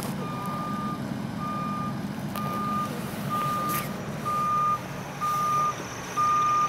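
Emergency vehicle's backup alarm beeping while it reverses: one steady-pitched beep about once a second, growing louder, over the drone of an idling engine.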